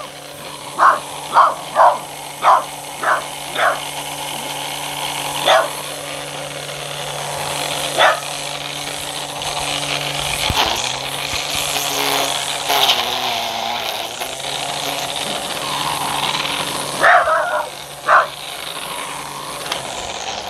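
Electric string trimmer running with a steady motor hum that dips in pitch and recovers about halfway through, while a dog barks at it. There is a quick run of six barks at the start, two single barks a few seconds later, and three more near the end.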